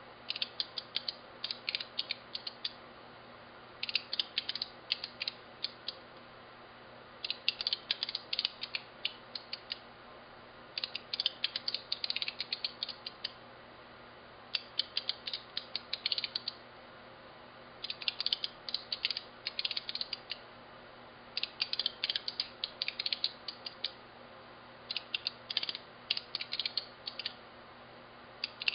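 Signalex electromechanical flip-segment seven-segment displays, six digits, flipping their vanes one segment at a time as each coil is pulsed: bursts of rapid sharp clicks lasting two to three seconds, with about a second's pause between bursts as each new number is set.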